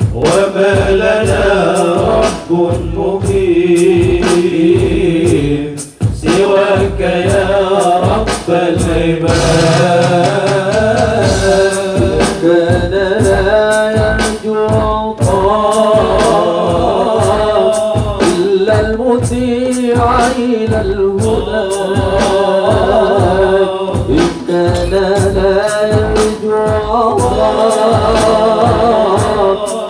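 A group of men singing Islamic sholawat in unison through microphones and a PA, over a steady drum beat.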